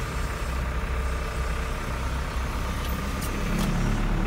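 Truck engine running steadily while driving, heard from inside the cab, with a few faint clicks about three seconds in.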